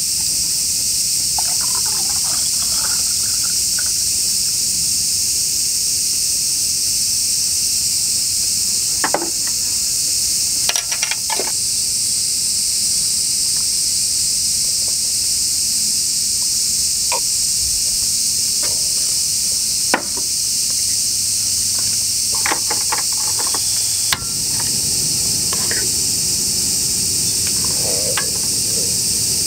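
A steady high-pitched insect chorus. A few short clicks and knocks, like tableware being handled, sound about a third of the way in and twice more in the second half.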